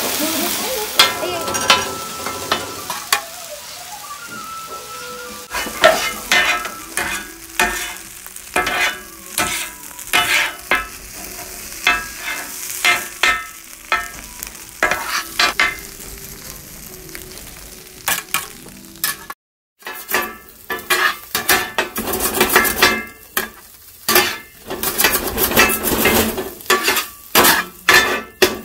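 Kothu roti being chopped and mixed on a hot flat griddle with two metal blades: repeated clanging strikes of steel on the plate over frying sizzle. The strikes are sparse at first and come faster and louder in the last third, after a brief dropout.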